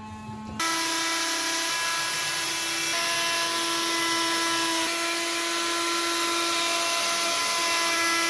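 Handheld trim router running at steady speed while cutting a groove into a white panel: a steady whine that comes in abruptly about half a second in.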